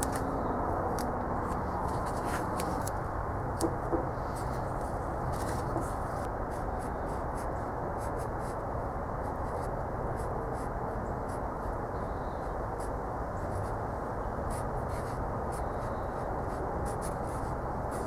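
Black permanent marker writing on a metal can: a long run of short scratchy strokes over a steady low background noise.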